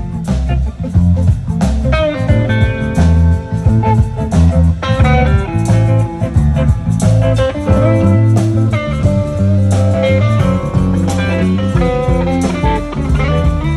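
Live band playing: guitars over electric bass and a drum kit, with regular drum hits.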